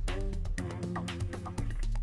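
Background music with a held bass line, shifting pitched notes and a steady beat.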